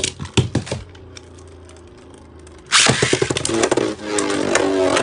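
Beyblade Burst tops in a plastic stadium, launched at low speed: a quick rattle of clicks as the first top lands, then its steady whirring spin. About three seconds in a second top is launched with a loud rip, and the two whir and scrape against the stadium floor and each other.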